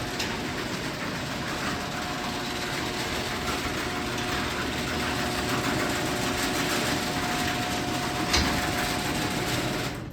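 Genie screw-drive garage door opener running as it raises the door: a steady motor hum with a held whine, a click at the start and a knock about eight seconds in, then it stops at the very end.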